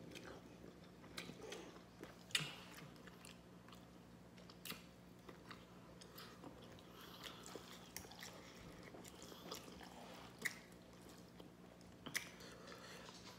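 Faint chewing of spicy instant noodles and a boiled egg, with scattered sharp mouth clicks and smacks.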